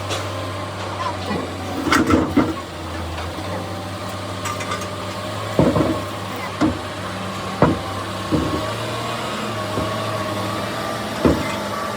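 Repair-work sounds on excavator swing-drive parts: about seven sharp knocks and clanks at irregular intervals over a steady low engine-like hum.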